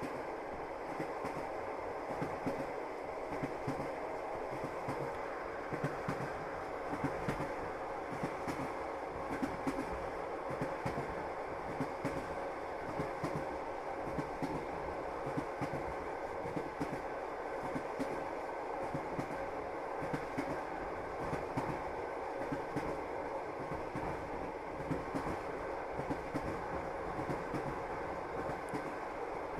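A train running steadily, its wheels clattering over the rail joints in irregular knocks over a continuous rumble, with a faint steady hum.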